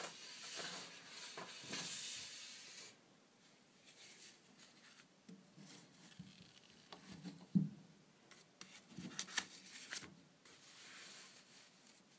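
Faint handling noise: rubbing and rustling, with scattered light clicks and taps and one louder soft knock about seven and a half seconds in.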